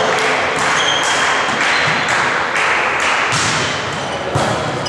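Volleyball being played in a sports hall: repeated taps and thuds of the ball and players over a steady, echoing din, with one sharp knock about four and a half seconds in, the loudest.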